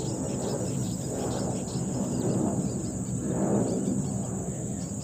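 Insects chirring in a steady high drone over a rough, uneven rustling noise that swells and fades.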